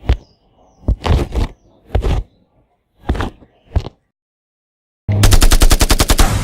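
Sound-effect gunfire: a few separate sharp hits spaced about a second apart, then about five seconds in a rapid machine-gun burst of about a dozen shots a second lasting nearly two seconds.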